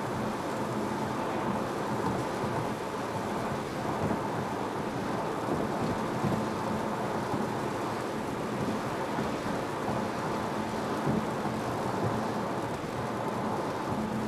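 Interior noise of an Audi Q3 2.0 TDI cruising at about 120 km/h: a steady rush of tyre and wind noise over a low, even drone from the four-cylinder diesel engine.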